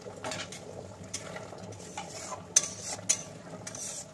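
A steel spatula stirring paneer cubes into thick simmering spinach gravy in a metal kadai, scraping and clinking against the pan several times. A steady low bubbling of the gravy runs underneath.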